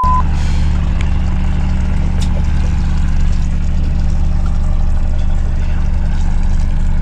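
Boat engine idling, a steady low hum. A brief censor bleep ends just as it begins.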